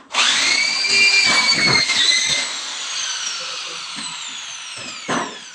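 Corded electric drill driving a screw into fibre-cement board on a metal stud: the motor starts at full speed with a high whine, runs for about two seconds, then is let off and spins down, its pitch falling steadily. A short knock near the end.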